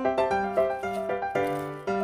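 Upbeat background piano music, a bouncy melody of quick struck notes over a bass line.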